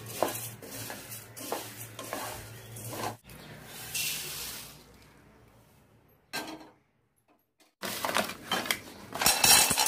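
Coriander seeds being stirred and scraped with a spatula in a hot wok, crackling as they finish roasting. About three seconds in, the sound cuts to a brief rush of roasted whole spices pouring into a metal bowl, then paper rustling and handling near the end.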